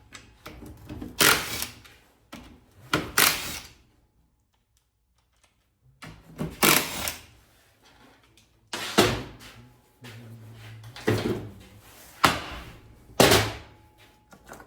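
About seven short bursts of a socket tool working the bolts on an NP242 transfer case's tail housing, with a pause of about two seconds partway through.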